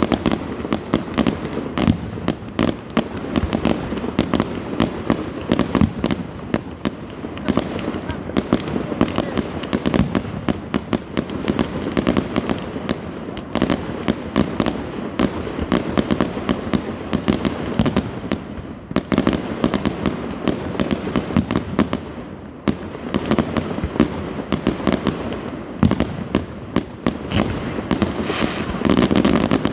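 Fireworks: a continuous barrage of sharp bangs and crackles, many reports a second, easing off briefly a few times before picking up again.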